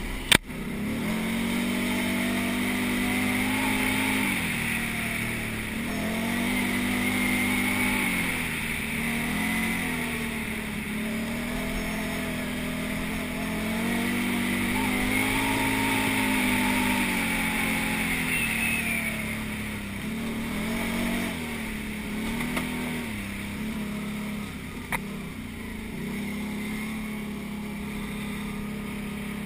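Can-Am quad bike engine running under load, its pitch rising and falling every few seconds as the throttle is opened and eased off. A sharp knock comes right at the start, and a smaller one near the end.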